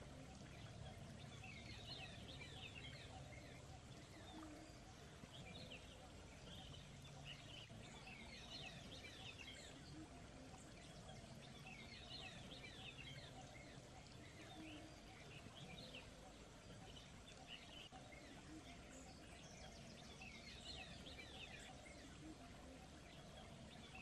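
Faint bird chirping: clusters of quick, high chirps come every few seconds over a steady low background noise.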